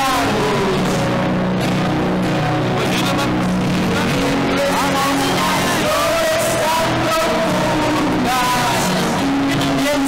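Live band music with a singer's voice over it, loud and steady throughout.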